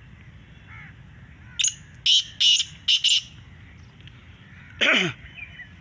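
Caged black francolin calling: a quick run of five harsh, loud notes. Near the end comes one more loud, harsh sound that falls steeply in pitch.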